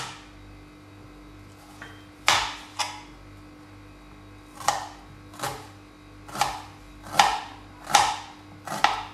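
Kitchen knife chopping an onion on a plastic cutting board: about nine sharp, separate chops at an uneven pace, some half a second apart, others a couple of seconds apart.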